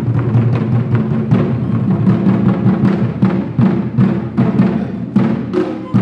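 Ensemble of Chinese barrel drums beaten in a fast, dense run of strikes, as part of a live Chinese traditional-music performance.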